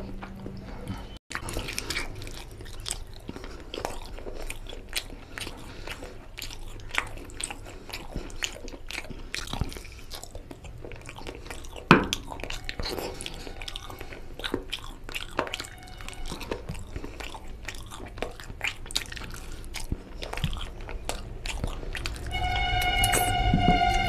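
Close-miked eating: a person chewing and biting chicken curry and rice by hand, tearing meat from a chicken leg, in a dense run of small wet clicks, with one sharp louder click about halfway. Music starts near the end.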